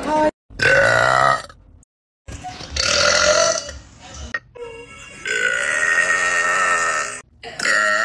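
A woman burping loudly, four long, drawn-out belches one after another, each lasting one to two seconds.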